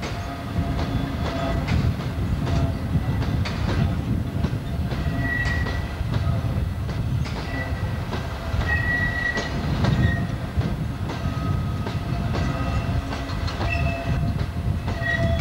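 A train of empty MGR coal hopper wagons, pushed by a class 56 diesel, rolling past with a steady low rumble and repeated clicks and clatter from the wheels over the rail joints. Now and then the wheels squeal in thin, high tones.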